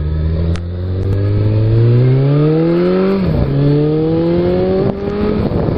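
Suzuki Bandit motorcycle with the baffle removed from its Yoshimura exhaust, accelerating hard: the engine note rises, drops at an upshift about three seconds in, rises again and drops at another shift near the end.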